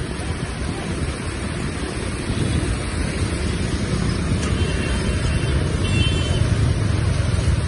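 Fast-flowing muddy floodwater rushing, with heavy rain, as a steady noisy rush that slowly grows louder.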